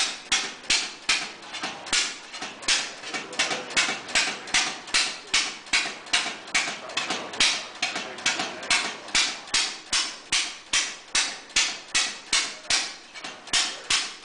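Reproduction 1883 Daimler hot-tube-ignition gasoline engine running, with a sharp, even bang nearly three times a second.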